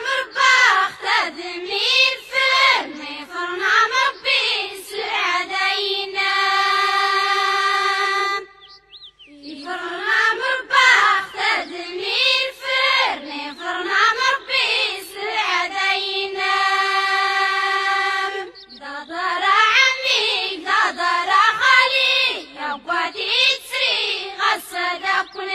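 A high voice singing an ornamented melody in long phrases. Each phrase ends on a long held note, three times, with a short break about eight and a half seconds in.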